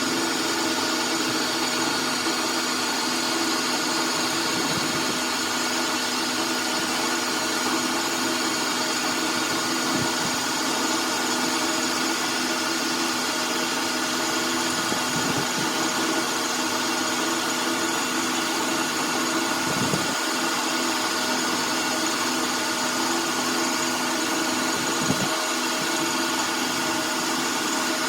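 Workshop machine tool running steadily: an even motor hum and whine with a few faint knocks, the loudest about three quarters of the way through.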